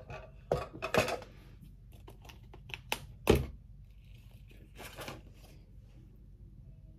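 Makeup items and cases being handled on a counter: a run of small clicks and knocks with rustling, the sharpest knock about three seconds in and a short rustle near five seconds.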